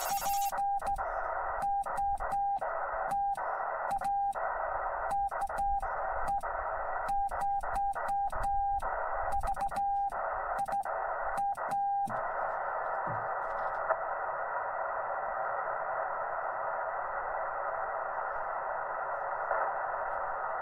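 Morse code CW sidetone from a Yaesu FT-891 transceiver, a steady beep keyed on and off by hand with a straight key, over the hiss of the receiver. The sending stops about twelve seconds in, leaving only the receiver hiss.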